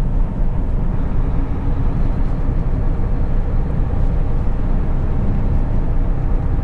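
Steady engine drone and road rumble inside the cab of a Mack truck under way.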